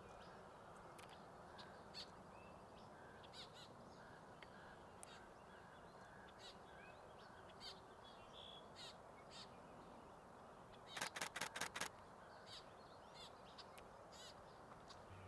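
Nikon Z6 II camera shutter firing a rapid burst of about seven clicks in under a second, about eleven seconds in, over a faint background of small birds chirping.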